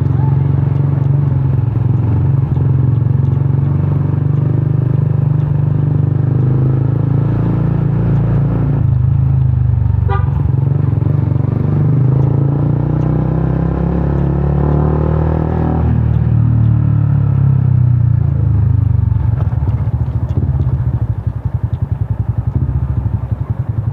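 Yamaha Sniper 150's single-cylinder four-stroke engine running loud through a gutted stock exhaust (kalkal pipe). The pitch rises for a few seconds about halfway through, then drops. Near the end it settles into a slower, choppy pulsing.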